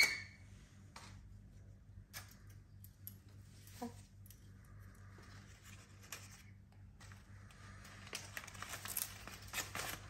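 Female red-tailed black cockatoo tearing and crunching paper with its beak: scattered crackles and rips, coming thick and fast near the end. A short, sharp bird squawk right at the start.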